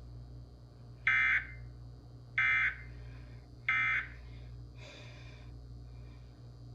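Three short bursts of Emergency Alert System digital data tones, the end-of-message code that closes an EAS test, played over a radio. Each burst lasts about a third of a second, and they come about a second and a quarter apart.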